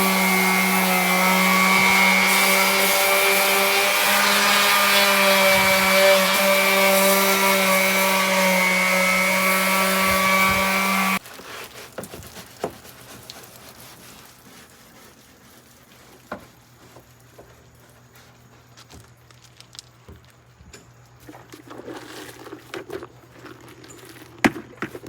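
Electric power sander running steadily with a strong hum and hiss as it sands paint off a boat hull, then switched off about eleven seconds in. Faint knocks and handling sounds follow.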